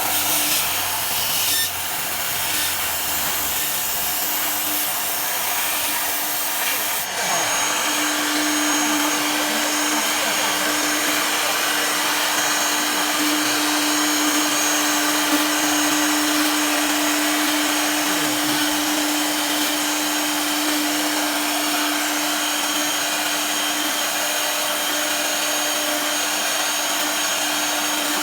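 CNC pipe-drilling machine for PVC pipe running with a steady, loud whir. About seven seconds in the hiss changes and a steady hum joins it.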